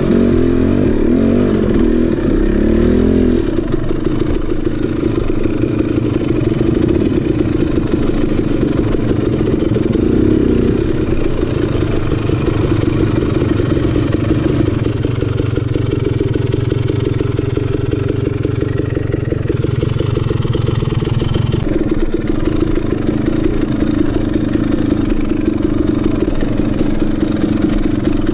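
KTM 300 two-stroke dirt bike engine running at low revs on a rocky trail. The revs rise and fall with the throttle in the first few seconds, then hold steadier, with an abrupt change in the engine note about three-quarters of the way through.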